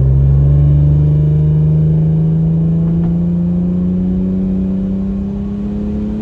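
Infiniti VQ35HR V6 with a stainless cat-back exhaust pulling hard under acceleration in one gear, its engine note climbing steadily in pitch.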